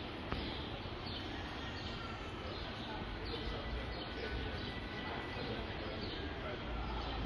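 Busy city-centre ambience: a steady haze of crowd chatter, with small birds chirping over it in repeated short, falling chirps.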